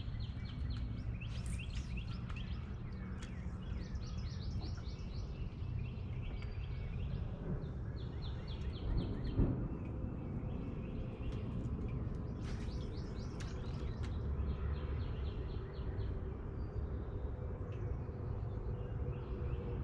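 Songbirds singing outdoors, a series of rapid trills and chirps repeated every second or two, over a steady low background rumble. A brief bump about nine seconds in.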